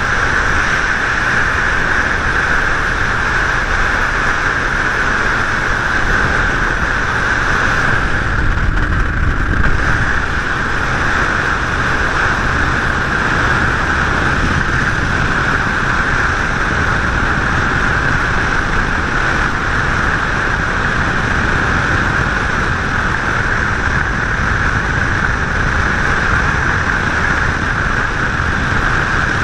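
Steady rush of water and wind along the hull of a Triton TR186 bass boat under way, swelling briefly about eight seconds in.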